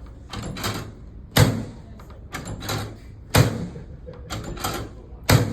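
Chiropractic drop table giving three heavy thuds about two seconds apart as its padded section is thrust down during adjustments. There are softer shuffling sounds between the thuds.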